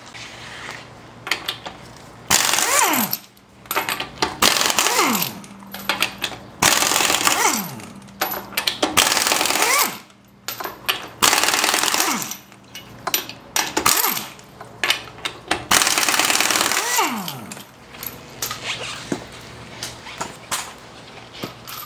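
Impact wrench hammering lug nuts loose on a Toyota Sequoia rear wheel, in a series of bursts of a second or two each, one nut after another. Most bursts end in a falling whine as the wrench spins down, with small metallic clicks between them.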